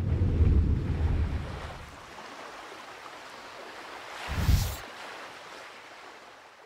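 Sea water washing with wind buffeting the microphone, a heavy low rumble in the first two seconds, then a steady wash; a short, louder burst comes about four and a half seconds in, and the sound dies away near the end.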